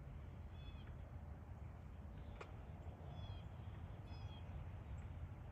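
A few faint, short, high bird chirps, about three of them, over a steady low background rumble and hiss, with one soft click midway.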